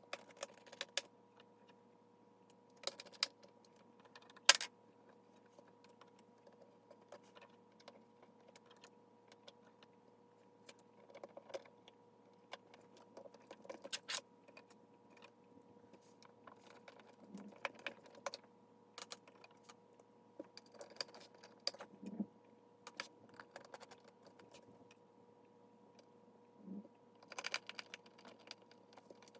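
Scattered small clicks and taps of plastic laptop parts being handled and fitted together, irregular and sparse, with a sharper knock about four and a half seconds in and a quick flurry near the end, over a faint steady hum.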